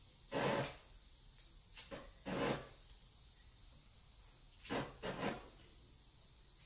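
Short hissing, rustling handling noises from things being moved at a workbench, in three clusters about two seconds apart.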